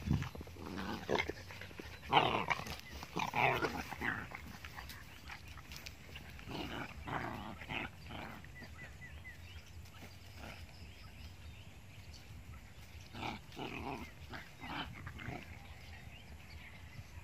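Puppies play-fighting, growling and yapping off and on, with quieter gaps between.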